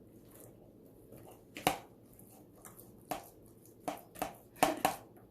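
Sticky homemade slime being mixed in a bowl: about six short, sharp wet smacks and clicks, most of them in the second half.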